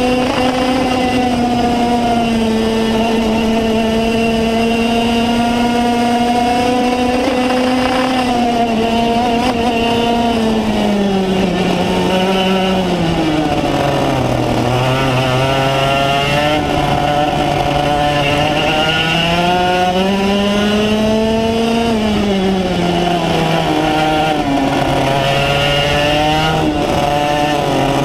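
Racing kart engine heard from a camera mounted on the kart: the note holds high and steady along a straight, drops as the kart slows for a corner around the middle, picks up again, dips once more and climbs slowly near the end.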